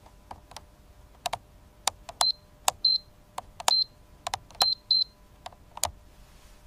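Button presses on a digital temperature controller: a run of sharp clicks, five of them followed by a short, high beep, as the setpoint is stepped up a tenth of a degree at a time.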